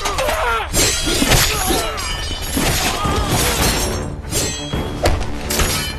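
Action-film battle soundtrack: a dramatic music score with several sharp sword clashes and blows struck across it.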